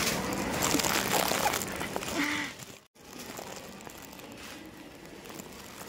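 Plastic shopping bags crinkling and rustling as groceries are handled and packed. The sound cuts off sharply about three seconds in, and a quieter steady background follows.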